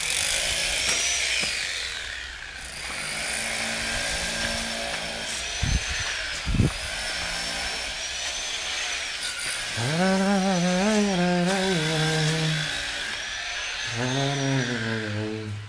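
Electric power tool running with its motor whine rising and falling several times as the speed changes.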